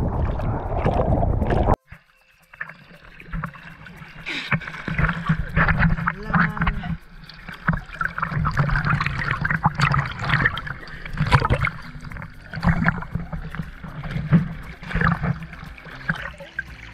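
Sea water sloshing and splashing right against an action camera held at the surface. A dense rush cuts off abruptly about two seconds in, then irregular lapping and small splashes follow.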